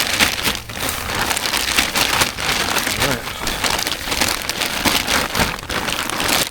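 Snowstorm precipitation pattering close to the microphone: a dense, steady crackle of many small hits.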